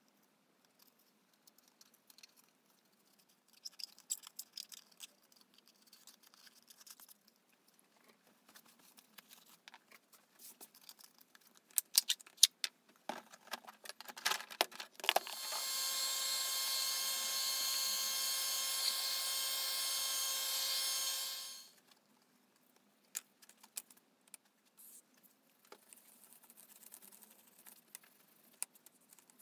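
A small corded handheld power tool being lifted from its hard plastic case with a few clicks and knocks, then switched on and run at a steady high speed for about six seconds, a whine with many overtones, before being switched off and winding down quickly.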